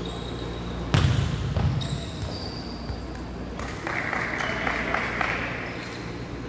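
A volleyball is struck hard about a second in, a single loud smack that rings on in the echoing sports hall. Shoes squeak briefly on the court floor afterwards.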